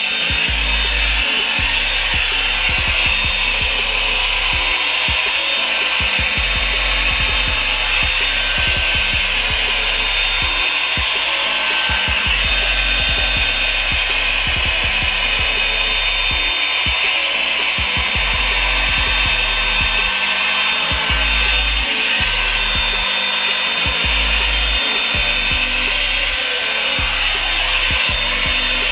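Revlon brush blow dryer running steadily: a motor whine over the rush of air from the fan.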